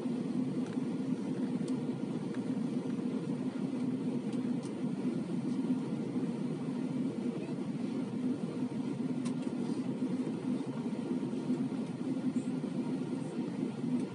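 Steady cabin noise of an Airbus A320 in flight, heard from inside the cabin: an even, low rush of the twin turbofan engines and the airflow over the fuselage, with a faint steady hum.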